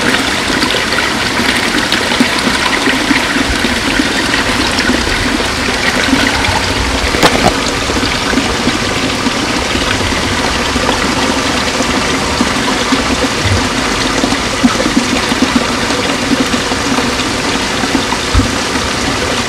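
Water pouring steadily into a koi pond, a continuous rushing and splashing.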